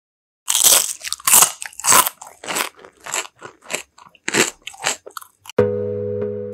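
Fried potato chips, topped with cheese sauce, being bitten and chewed: a run of crisp crunches about two a second, loudest at the first bites. Near the end, outro music with a steady synth chord comes in.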